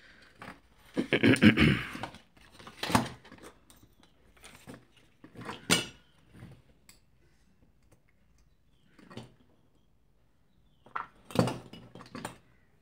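A circuit board and hand tools being handled on a workbench. A cluster of knocks and rattling comes about a second in, then single clacks and clinks, with a few more near the end.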